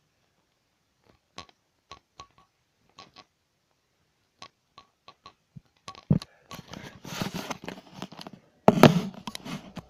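Handling noise from a handheld camera being jostled: a scattering of sharp clicks, then a couple of seconds of rustling and scuffling with two heavy thumps, the louder near the end.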